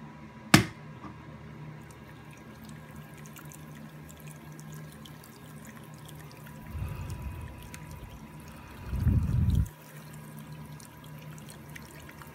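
Ultrasonic foggers in a water tray running with a faint steady hum, and a sharp plastic click as the tub's lid comes loose about half a second in. Two short bursts of low gurgling water come about seven and nine seconds in.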